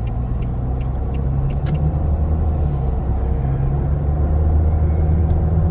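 Car engine and road noise heard from inside the cabin while driving, a steady low hum that shifts slightly in pitch. A light, even ticking, about two or three a second, runs through the first couple of seconds.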